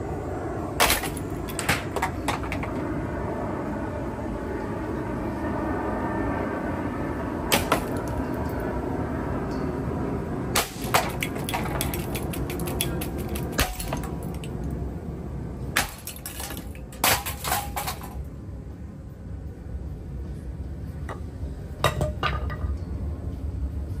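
Cheap ceiling fan running and shaking itself apart: a steady motor hum broken by repeated sharp cracks and clatters as its blades and parts break away. A burst of impacts comes about two-thirds of the way through as the fan body tears loose, after which the running sound is quieter.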